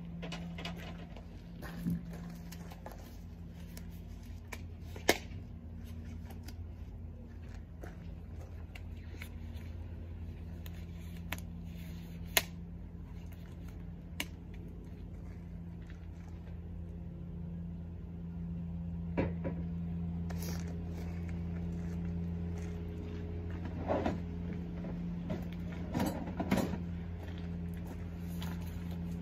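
Scattered knocks and clatter from wooden door panels and tools being handled in the back of a van. A few single sharp knocks are followed by a cluster of clatter near the end, over a steady low hum.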